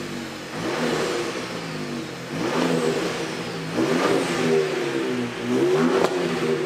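2021 Ford Raptor's twin-turbo V6 revving through its ZEN-Rage valvetronic stainless catback exhaust, with the pitch climbing and falling back about four times in short blips.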